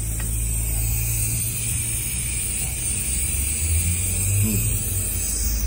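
Heavy truck engine running steadily with a low hum, its pitch shifting briefly about four seconds in.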